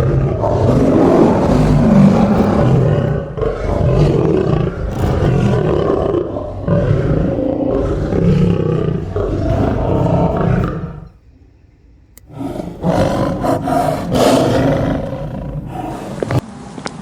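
Loud, continuous roaring that breaks off for about a second partway through, then returns more briefly and fades near the end.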